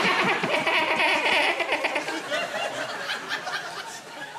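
Laughter from several people, loud at first and dying away over about four seconds.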